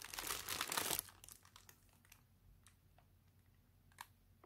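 Plastic mailing bag crinkling as it is handled for about the first second, then a few faint ticks and a short click near the end.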